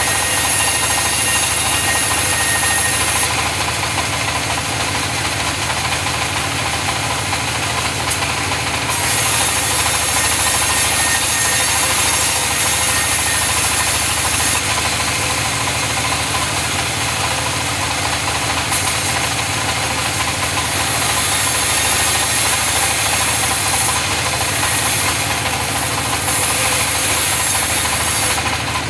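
Sawmill sawing mahogany: a steady machine hum, with a high hissing sound that comes and goes in stretches of a few seconds.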